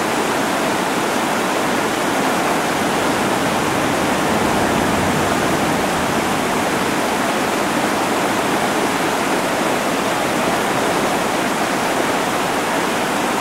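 River rapids rushing steadily over rocks, a constant roar of whitewater.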